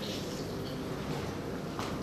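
Faint, steady trickle of distilled water running through a funnel and silicone pipe into the cooling-water tank of an SHR hair removal machine while the tank fills, with a light click near the end.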